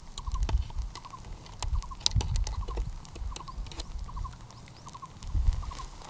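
Light, irregular crackling and clicking, with a soft rapid triple chirp repeating about two to three times a second behind it.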